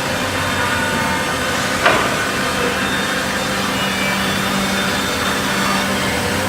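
CNC wood jigsaw running, a steady machine noise with a constant hum, and one sharp knock about two seconds in.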